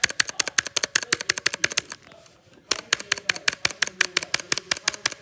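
Rapid typing on a computer keyboard, a quick, even run of sharp key clicks about ten a second, with a short break about two seconds in.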